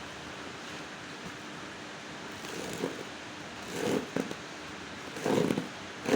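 Packaging being handled during an unboxing: several short bursts of rustling and scraping with a few clicks over a steady hiss, growing louder toward the end.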